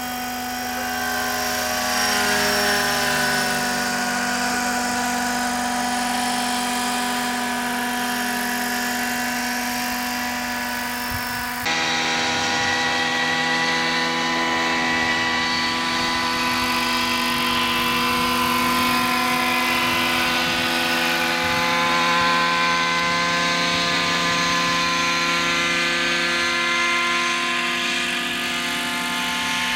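Radio-controlled scale model helicopters in flight: a steady whine of rotor and drive made of several held tones. The first is an AS350 Squirrel-style model; after an abrupt cut about twelve seconds in, the sound changes to that of a Bell 47-style model.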